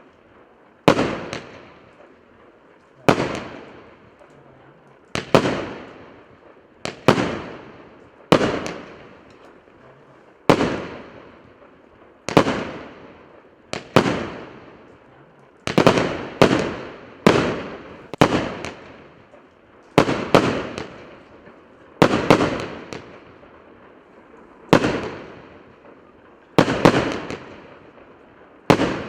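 A 1.2-inch, 100-shot firework cake firing: a sharp bang roughly every one to two seconds, each with a short fading tail, a few coming in quick pairs.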